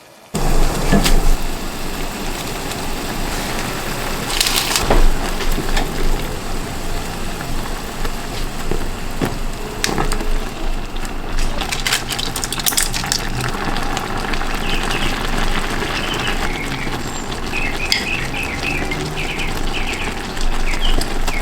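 Instant noodles cooking in a pot of seasoned broth on the stove: a steady, loud sizzling and bubbling, with scattered clicks of a utensil against the pot.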